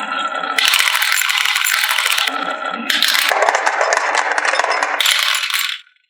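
Many marbles clattering and rattling down a marble run track in a dense stream. The sound shifts several times as they pass different sections, then stops abruptly near the end.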